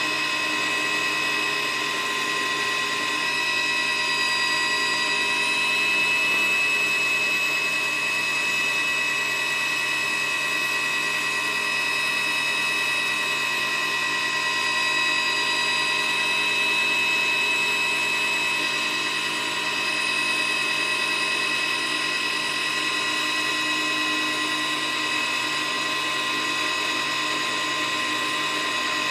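Helicopter turbine engine whining steadily at a high pitch, with several fixed tones over a constant rushing noise, as heard from inside the aircraft.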